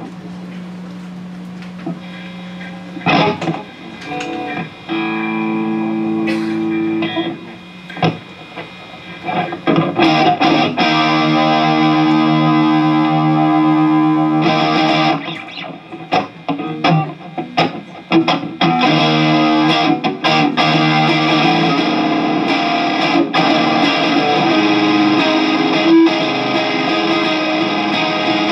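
Electric guitar played through effects with some distortion: held chords that come in short phrases at first, then play almost without a break from about ten seconds in.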